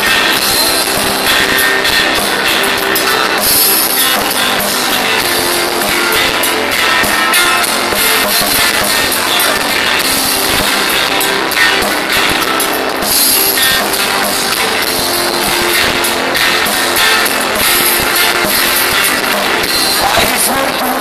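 Live rock band with drum kit and guitars, recorded through a phone microphone, so the sound is loud, harsh and thin in the bass.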